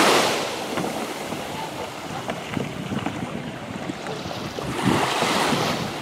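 Sea water lapping and splashing around a tandem sit-on-top kayak as it is paddled through the shallows, with many small splashes. Wind rushes over the microphone, loudest at the start and again about five seconds in.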